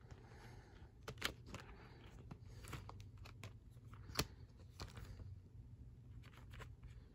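Plastic clicks and rustling as a Blu-ray case is handled and a disc is lifted off its stacked hub, with the sharpest click about four seconds in.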